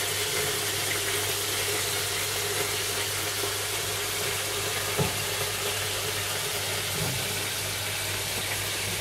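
Aquarium running: a steady rush of bubbling water from the tank's aeration, over a low steady hum. There is a small knock about five seconds in.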